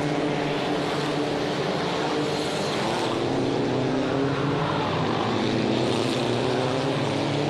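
Engines of 1.6-litre turbocharged touring race cars running at speed, a steady drone whose pitch drifts up and down slightly, heard through a television's speaker.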